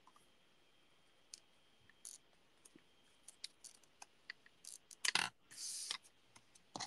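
Card and paper being handled and pressed down on a craft desk: scattered light clicks and taps, then a louder rustle of paper about five seconds in.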